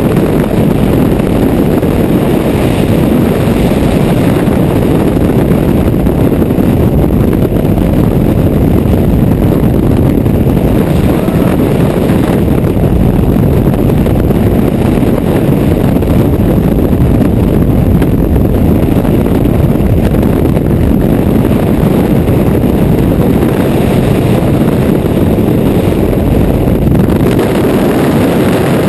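Freefall wind rushing over the camera microphone: a loud, steady, low rush of air with no break.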